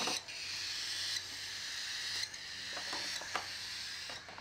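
Baby cockatiel chicks giving their raspy, hissing food-begging calls in near-continuous stretches of about a second each, the sound of hungry chicks at hand-feeding.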